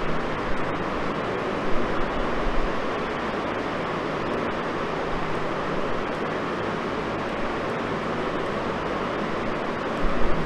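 Steady, even rushing background noise with no speech. There are a few soft bumps about two seconds in and again near the end.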